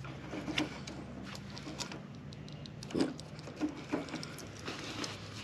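Scattered light clicks, taps and scrapes of a screwdriver being handled and fitted to a screw in a boat's drain plug housing, over a faint steady low hum.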